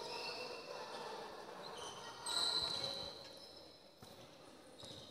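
Basketball game sounds on an indoor court: the ball bouncing, short high squeaks of sneakers, and faint voices behind, with a louder high squeak a little over two seconds in.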